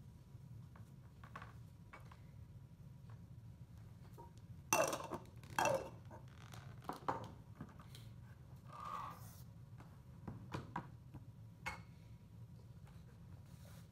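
Plastic toys and clear plastic cups being gathered up and set down on a table: scattered knocks and clatters, with two louder ringing knocks near the middle.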